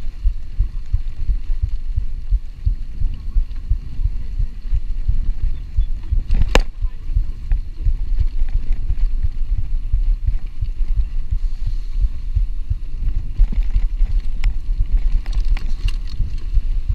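Mountain bike jolting over a bumpy grass track, picked up through a handlebar-mounted camera: a constant low rumble of rapid thumps, with a sharp knock about six and a half seconds in and a few lighter clicks near the end.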